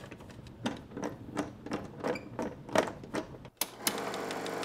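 Irregular metal clicks and scrapes of a socket driver working a screw in the case of a Bell & Howell 1574 16mm film projector. Near the end a couple of sharp switch clicks, then the projector's motor starts and runs with a steady hum on its newly fitted drive belt.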